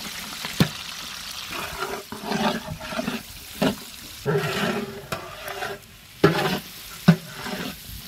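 Long metal ladle stirring and scraping diced carrot and shallots around a large aluminium pot over a steady sizzle of frying, with several sharp knocks of the ladle against the pot.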